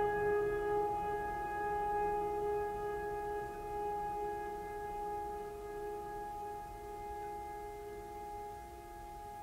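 A sustained musical drone: two steady notes held without a break, slowly fading.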